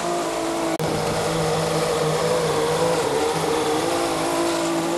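Small gasoline engine of lawn equipment running steadily at high speed, with a momentary dropout about a second in.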